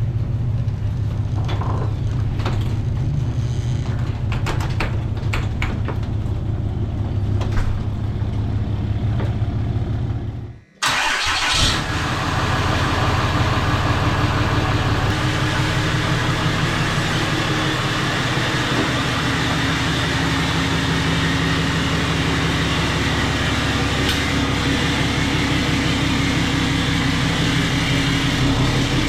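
Dirt bike engine running steadily. About eleven seconds in it cuts off abruptly, and a louder, brighter-sounding engine takes over for the rest.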